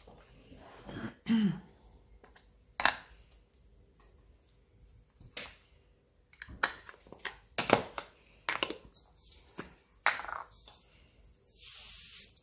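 Handling of craft supplies on a cutting mat: an ink pad and its plastic lid being picked up, opened and set down, giving a scatter of light clicks and knocks with a brief rustle and squeak about a second in. A short hiss near the end.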